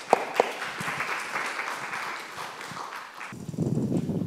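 Audience applauding, many hands clapping, which stops about three seconds in and gives way to a lower, muffled rustle near the end.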